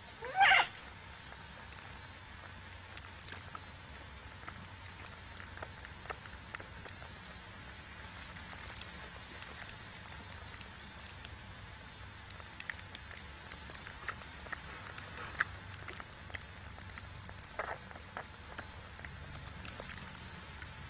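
Outdoor ambience with a faint high chirp repeating about twice a second, scattered small scratchy clicks, and one short, loud sound just after the start.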